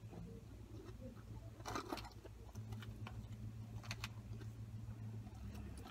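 A person chewing curly fries with the mouth closed, and a plastic fork picking at a foam takeout container, heard as scattered soft clicks. Under it runs a steady low hum that grows a little louder about halfway through.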